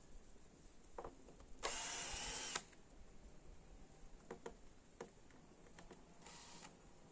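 Power drill run in a short burst of about a second, then briefly again near the end, with scattered clicks and knocks of handling between.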